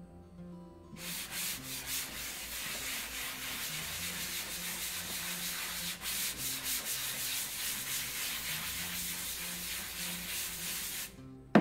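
A medium-grit sanding block is rubbed by hand in quick back-and-forth strokes over a thermofoil-wrapped bureau top, scuffing the surface. The rasping starts about a second in and stops shortly before the end.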